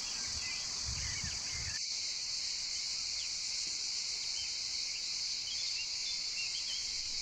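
Steady, loud chorus of summer insects, with a few faint bird chirps.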